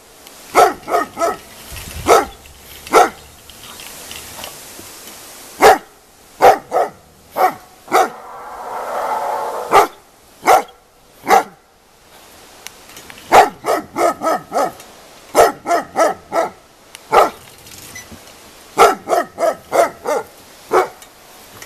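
Ten-month-old Jämthund (Swedish elkhound) baying at a bear hide: loud, sharp barks in quick runs of two to four, with short gaps between runs.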